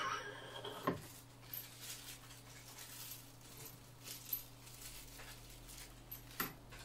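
Small handling sounds while a metal microscope stand is put together: a sharp knock about a second in, then faint crinkling and clinking as a small plastic bag of parts is handled, and another click near the end.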